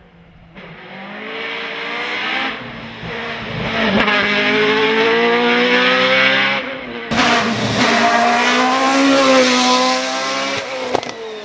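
Lola FA99 single-seat race car's Cosworth engine approaching and passing at full throttle, its high-pitched note climbing through the revs with short breaks at the gear changes. It falls away near the end with a few sharp pops.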